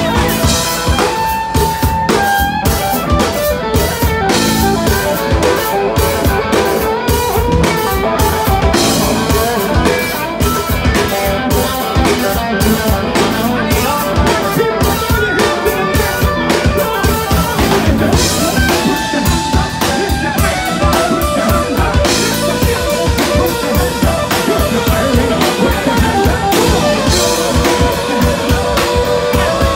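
Live rock band playing an instrumental passage without vocals: a drum kit keeping a steady beat under electric guitar and bass.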